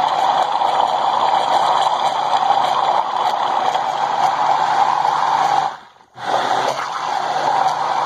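Countertop blender motor running steadily, whirling a thin liquid batter of milk, eggs, oil and flour. It cuts out for about half a second around six seconds in, then runs again.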